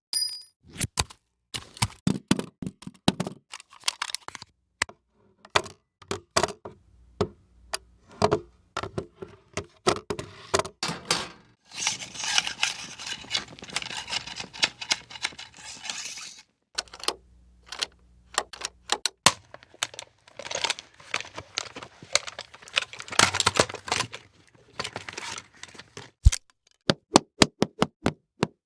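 A rapid series of weapon and metal sound effects: sharp clicks, knocks and clanks one after another, with two longer noisy stretches of a few seconds each and a quick run of clicks near the end.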